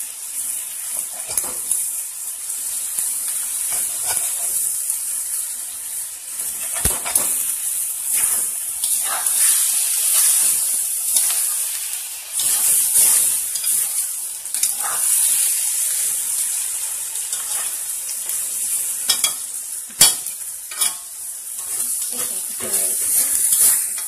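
Chopped ash gourd frying in oil in a wok, sizzling steadily while a spatula stirs and scrapes it around the pan, with occasional sharp scrapes and knocks against the pan.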